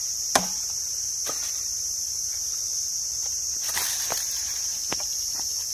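A small axe chopping a tree branch: a few sharp wooden knocks, the loudest about half a second in, over a steady high insect drone.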